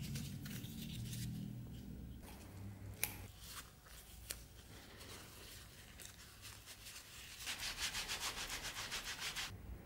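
Cloth rag rubbed over a leather sheath on a workbench, with soft handling and a couple of light clicks. Near the end it turns into quick back-and-forth rubbing, about six strokes a second, for roughly two seconds.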